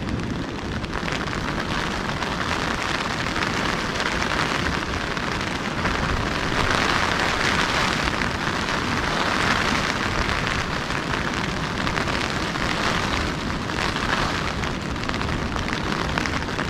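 Steady rain falling, an even dense hiss of drops that barely changes in level.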